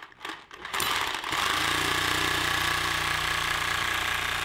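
Reciprocating saw running steadily, its blade cutting through the rubber of a tractor tire; it starts about three-quarters of a second in.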